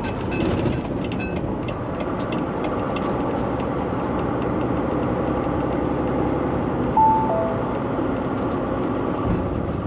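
Semi-truck driving at highway speed: a steady engine hum with road noise. About seven seconds in comes a short two-note chime that steps down in pitch.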